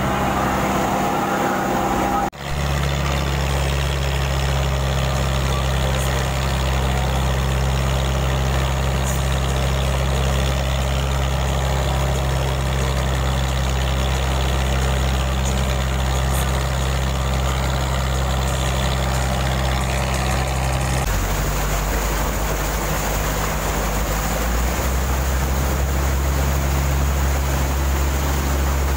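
Mitsubishi PS100 four-cylinder diesel marine conversion running steadily under way, a deep even drone. It drops out briefly about two seconds in, and its tone shifts slightly about three-quarters of the way through.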